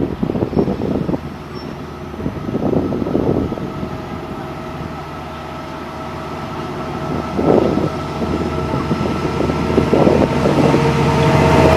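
LIRR DM30AC diesel locomotive approaching with a train of bilevel coaches, its engine drone with steady humming tones growing louder toward the end. Several gusts of wind buffet the microphone in the first half.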